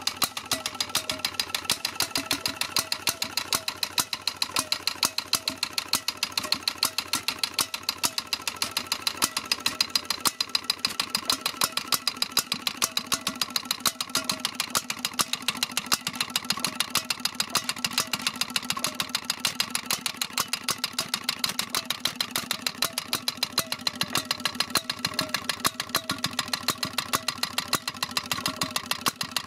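Sunshine 7 hp portable single-cylinder stationary engine running steadily, with a regular sharp beat about three to four times a second.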